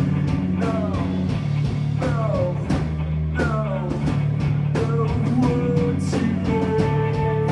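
Live noise-rock band playing: drums on a steady beat about twice a second over a droning bass line, with sliding high lines above and a long held note coming in about a second before the end.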